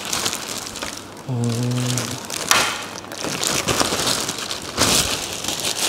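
Clear plastic packaging crinkling and rustling as it is handled, with louder rustles about two and a half and five seconds in. A man's short hum sounds about a second and a half in.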